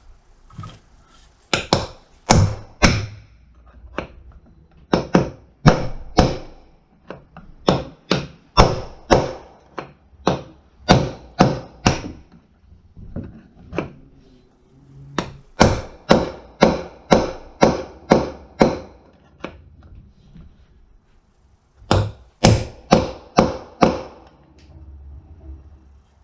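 Hammer blows on a punch, struck in quick runs of about two or three a second with short pauses between runs, driving a worn-out front caster bearing out of its housing on a Scag mower.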